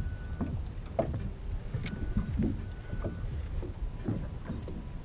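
Small waves lapping and slapping irregularly against the hull of a drifting Indigo-20 rigid inflatable boat, with a low rumble of wind under it.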